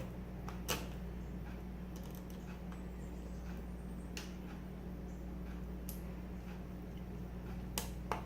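Scattered small, sharp clicks, five distinct ones with faint ticks between, from a small screwdriver working tiny screws out of a laptop's screen mounts, over a steady low hum.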